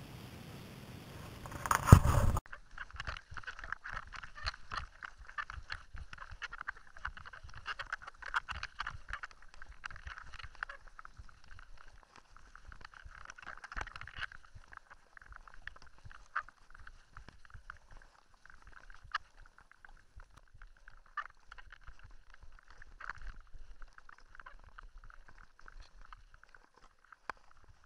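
A mountain bike rattling and clattering as it rides over a rough gravel track, with irregular clicks and knocks from stones under the tyres, heard through a handlebar-mounted camera. A single loud knock comes about two seconds in.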